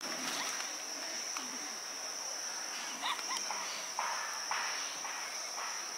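Insects chirring in a steady, high-pitched drone, with a few faint brief sounds about halfway through.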